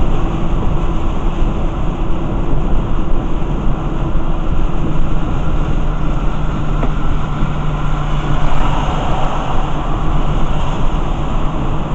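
Heard from inside a car's cabin driving through heavy rain: a steady, loud rush of tyres on a wet road and rain on the windshield, over a steady low hum.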